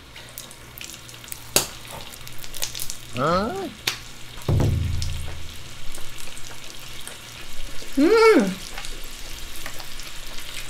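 Chewing a mouthful wrapped in crisp laver, with sharp crunching clicks, over a steady sizzle from an electric grill pan of pork makchang. Three short closed-mouth 'mmm' hums of enjoyment glide up and down, the loudest about eight seconds in.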